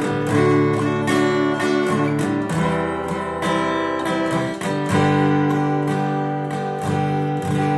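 Acoustic guitar strumming chords in D major at a steady rhythm, with no singing.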